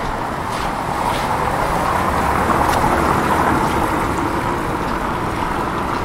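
A vehicle passing on a wet street: a steady tyre hiss that swells to a peak near the middle and then fades.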